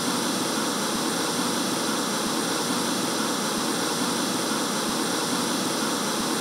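Steady hiss of television static, like an untuned TV, cutting off suddenly at the end.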